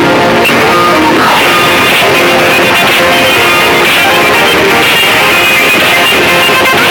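Loud, continuous guitar music.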